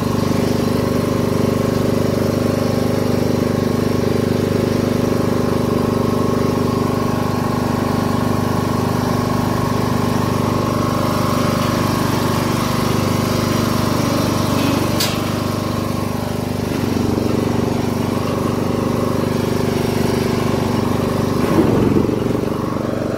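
Castle Garden ride-on lawn mower's engine running steadily, with a single sharp click about fifteen seconds in.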